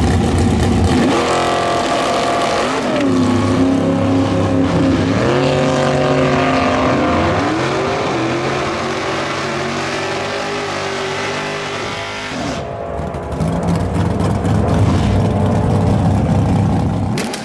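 Two drag race cars launching off the line and accelerating hard down the strip. The engines' pitch climbs and drops back about three times as they shift gears, then the sound fades with distance before a louder spell of engine noise swells near the end.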